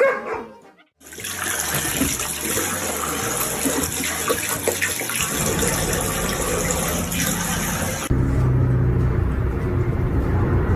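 A steady rush of running water for about seven seconds, then background music with a low bass line.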